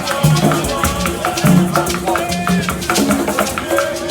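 Upbeat music with shakers and drums keeping a quick, even beat over a bass line and a melody.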